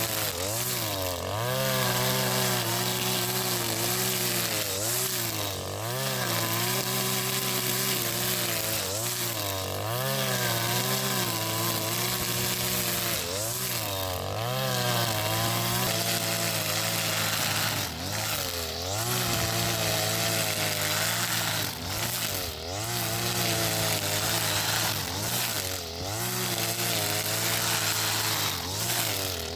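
Husqvarna 542RBS 42cc two-stroke brushcutter running at high speed, its engine note dipping briefly and picking back up every few seconds as the square nylon line cuts into thick grass.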